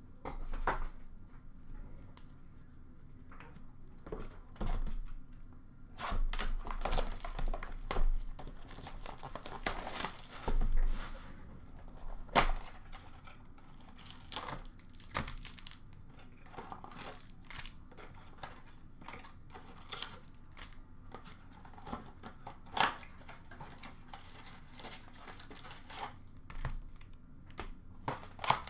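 Cardboard hockey card boxes being torn open and the wrapped card packs inside handled, with irregular tearing, crinkling and rustling and a few sharp ticks. The tearing is loudest about six to eleven seconds in.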